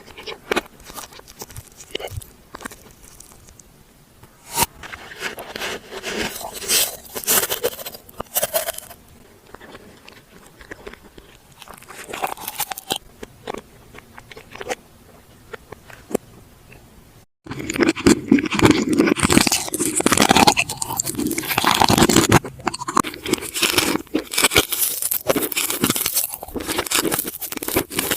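Close-miked ASMR eating: crisp bites and crunchy chewing, with sharp crackles and clicks. A little past halfway there is a brief cut, and after it the crunching is louder and denser.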